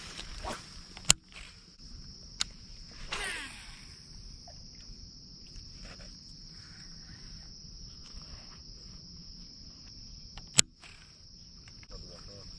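Steady, high-pitched drone of insects. Sharp clicks from a baitcasting reel being handled close to the microphone come about a second in and again near the end, with a short falling whir a little past three seconds.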